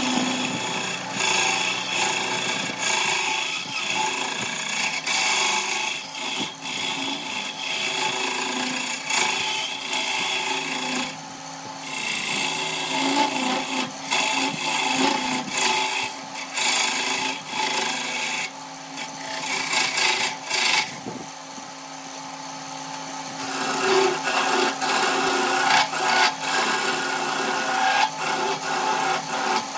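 Wood lathe running with a steady hum while a hand-held turning tool hollows the inside of a spinning wooden vessel. The cutting makes a rough scraping, shaving sound that comes in passes, with a brief let-up about a third of the way in and a quieter spell of a couple of seconds past the two-thirds mark.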